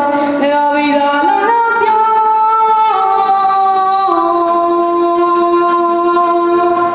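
A woman singing the closing phrase of a sanjuanero song. Her notes step up, then come back down, and she ends on a long held note that stops just before the end.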